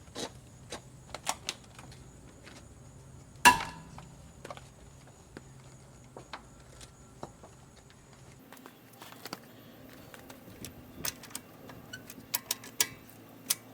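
Metal hand tools and lug nuts on a car wheel clicking and clanking, as someone works stubborn, over-tightened lug nuts loose by hand. One loud ringing metal clank comes about three and a half seconds in, and a quick run of clinks comes near the end.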